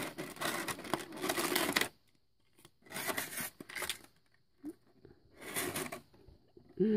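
Clear plastic blister packaging crinkling and crackling in the hands as small figure parts are worked out of it, in three bursts with short pauses between.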